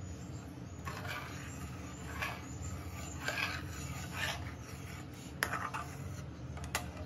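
Slotted metal spatula scraping and stirring through thin curry gravy in a steel kadai, in repeated strokes, with a couple of sharp knocks against the pan near the end. A steady low hum runs underneath.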